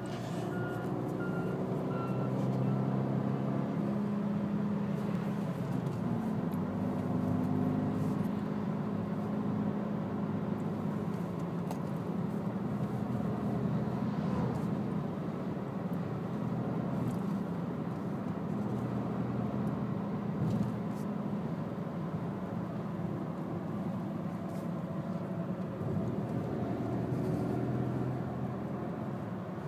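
Engine and tyre noise heard inside a car's cabin while driving along a road at a steady pace. The engine note holds steady, shifting in pitch now and then.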